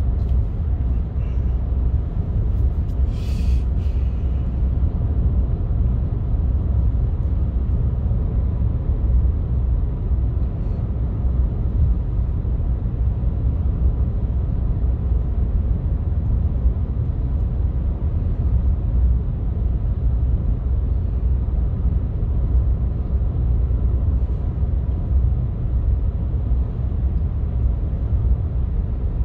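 Steady low rumble of tyre, road and engine noise heard from inside a moving vehicle at road speed, with a short hiss about three seconds in.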